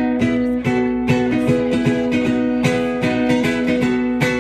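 Ukulele being strummed in a steady rhythm, several strokes a second, ringing on one sustained chord.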